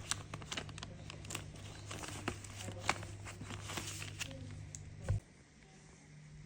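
Paper banknotes rustling and flicking as they are handled, in quick irregular crinkles and clicks; a dull thump about five seconds in, after which the rustling stops.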